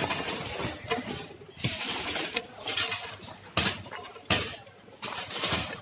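Demolition work breaking up a roof: irregular sharp knocks, about six, with rubble scraping and clattering between them.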